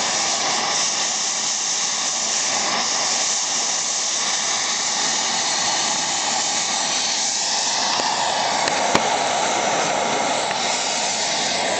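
Gas heating torch flame hissing steadily as it heats a seized excavator track bushing, with one sharp click about nine seconds in.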